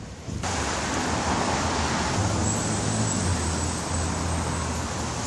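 Road traffic noise: a steady rush of vehicle noise that comes in suddenly about half a second in, with a low engine hum through the middle.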